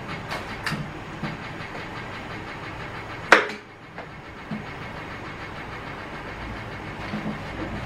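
Knife trimming puff pastry around the rim of a dish: a few faint clicks of the blade, and one sharp knock about three seconds in, over a steady background hum.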